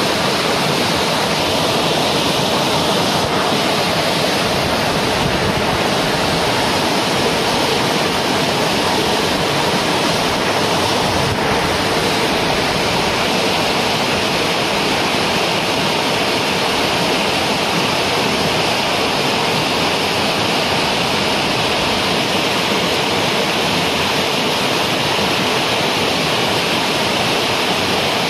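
Waterfall's falling water, a loud, steady rush that holds the same level throughout.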